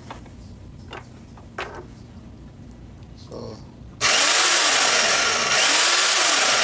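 Portable metal-cutting bandsaw switched on with a foot switch about four seconds in, then running steadily with nothing being cut. A few light knocks come before it starts.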